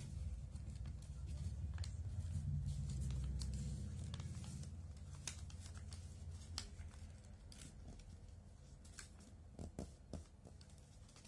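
Origami paper being handled and folded by hand: soft rustles, creasing sounds and small taps. A low rumble of handling noise fades out over the first half.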